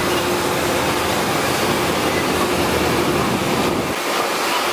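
Steady, loud rushing roar of aircraft and ground equipment running on an airport apron, with a faint steady hum under it. The deepest part of the roar falls away near the end.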